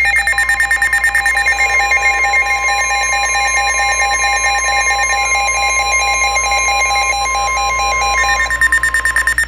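NOAA Weather Radio warning alarm tone, a steady 1050 Hz tone held for about nine seconds, with a fast pulsing, stepping beep pattern of higher tones over it that shifts pitch shortly before the end. It signals that a warning is about to be read.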